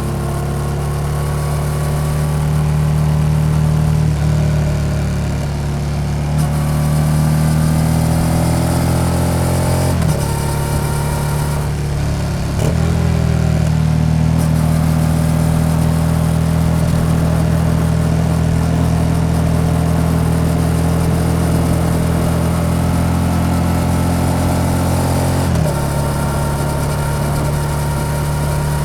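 Yamaha XSR700's 689 cc parallel-twin through an SC-Project aftermarket exhaust, running loud and steady under way. The note rises as it accelerates and changes abruptly a few times as the rider shifts gear.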